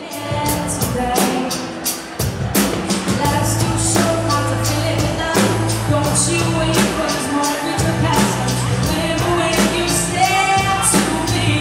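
Live pop-rock band playing: a woman singing over a steady drumbeat and held bass notes.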